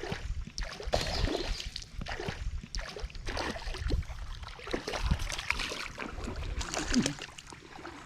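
Water splashing and sloshing in irregular bursts in a shallow creek as a hooked bass is played in.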